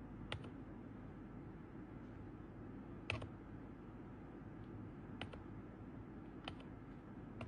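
Keys on a Magegee membrane keyboard pressed singly, four faint sharp clicks a second or more apart, as the RGB backlight modes are switched.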